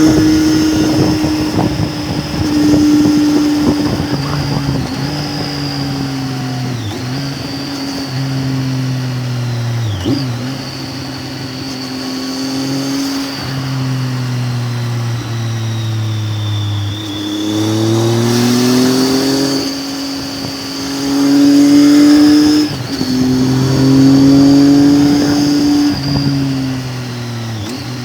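Triumph Tiger 800's three-cylinder engine under way, the revs climbing and dropping sharply several times as it shifts through the gears, with wind rushing past.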